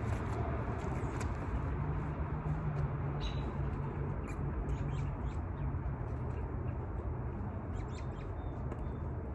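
Steady outdoor background noise with a low hum, and faint, scattered high chirps and ticks.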